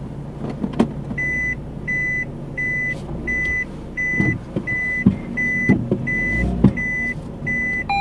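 A vehicle's reversing alarm sounding a single high beep over and over, about three beeps every two seconds, starting about a second in. Under it an engine runs low, with a few dull knocks.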